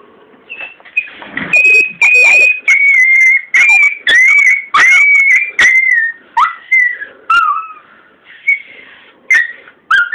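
A puppy whining in a rapid run of loud, high whines, several sliding down in pitch, starting about a second and a half in, pausing near the eighth second and coming back briefly near the end. A few sharp knocks and bumps sound among them.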